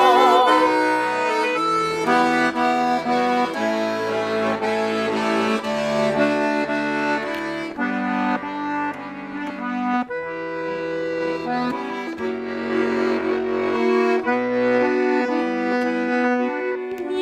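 Garmon (Russian button accordion) playing an instrumental interlude: a melody over sustained chords and bass notes, with no singing.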